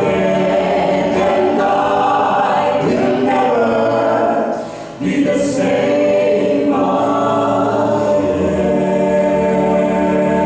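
A choir singing a worship song, holding long sustained notes, with a brief pause for breath about five seconds in before the singing picks up again.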